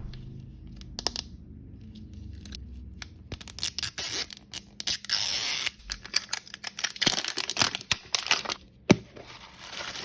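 Blind-bag packaging being torn open and crinkled: a run of crackles and tearing sounds, loudest a few seconds in, with a sharp click near the end.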